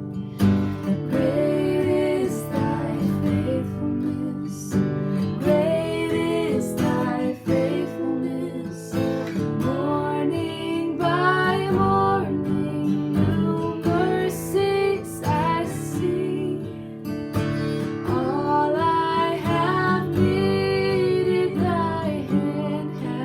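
Worship song: an acoustic guitar strummed under a singing voice.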